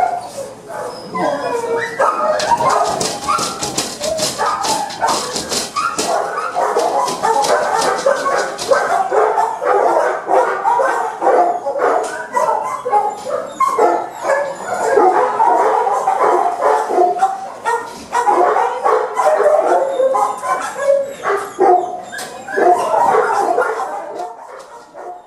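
Several kennelled shelter dogs barking, yipping and whining excitedly all at once, without a break, with a run of sharp clicks or rattles in the first third.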